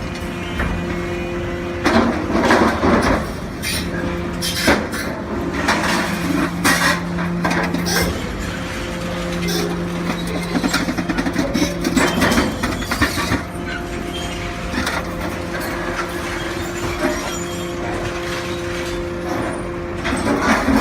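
Hydraulic scrap-metal baler/shear running: a steady machine hum from its hydraulic power unit, with repeated clanks and crunches of sheet metal being crushed.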